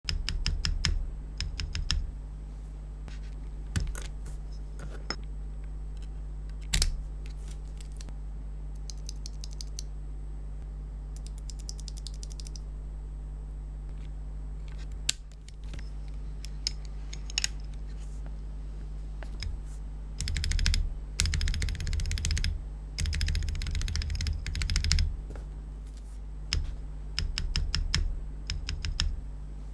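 Keystrokes on a mechanical keyboard fitted with Cerakey ceramic keycaps: scattered single key presses, then quick runs of typing near the end, over a steady low hum.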